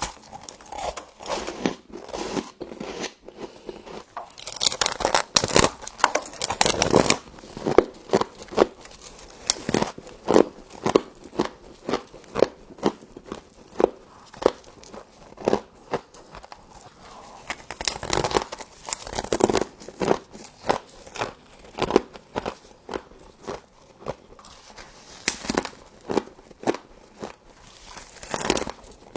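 Close-miked biting and chewing of frost: a run of sharp, crisp crunches, thickest in two bursts about five seconds in and again near the twenty-second mark.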